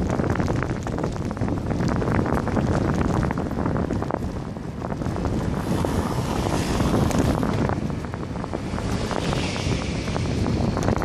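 Wind buffeting the microphone of a camera mounted on a moving road bike, a dense, rough rumble with constant flutter. Passing road traffic sounds under it, with a brighter hiss swelling around the middle and again near the end.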